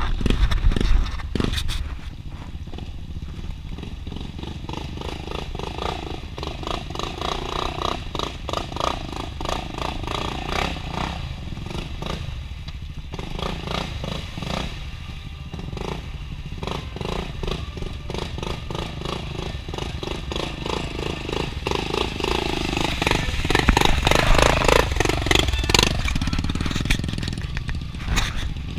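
Four-wheeler ATV engines running and revving under load as the quads churn through a deep mud hole, the engine note rising and falling with the throttle. The nearest machine is loudest toward the end, revving hard as it pushes through the mud and water.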